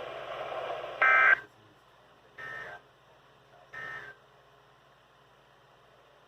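Emergency Alert System SAME end-of-message data signal: three short buzzing bursts of two alternating high tones, about 1.4 s apart, the first much louder than the other two. A faint radio hiss under the start drops away after the first burst.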